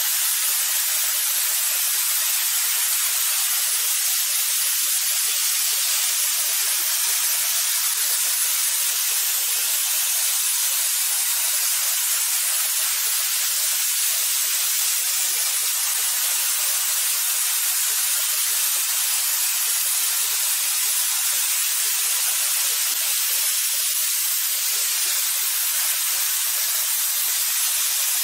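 Robotic plasma torch cutting through steel tube: a steady, even hiss of the cutting arc.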